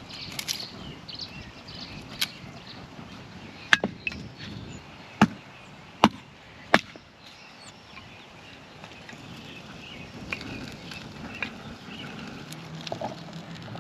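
Dry wood cracking and snapping sharply while a campfire is being started, a handful of loud cracks spaced about a second apart in the middle, with fainter ones later.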